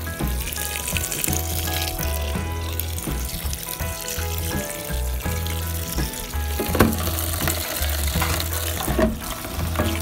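A stream of tap water pouring onto sun-dried omena fish in a plastic colander, a steady splashing hiss as the small fish are rinsed. Background music with a steady bass pattern plays under it.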